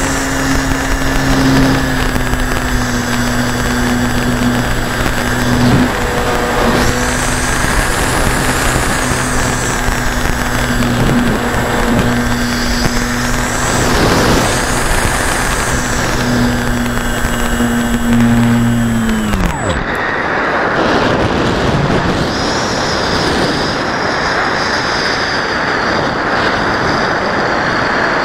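RC model airplane's motor and propeller running at a steady pitch, with wind rushing over the onboard camera's microphone. About two-thirds of the way through the motor winds down and stops, leaving only the rush of air as the plane glides.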